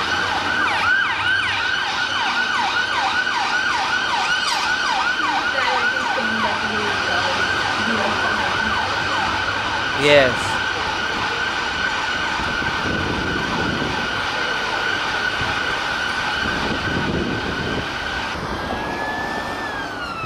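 UK emergency-vehicle siren sounding in a rapid yelp, about three to four sweeps a second, that goes steadier after the middle. Near the end it changes to a slow rising-and-falling wail.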